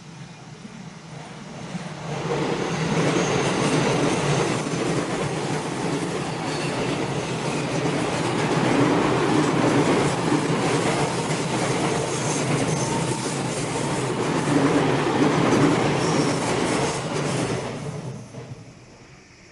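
A JR Tokaido Main Line train running past on a curved stretch of track. It comes in about two seconds in, wheels rumbling and clattering along the rails, with faint high wheel squeals on the curve here and there, and it fades away near the end.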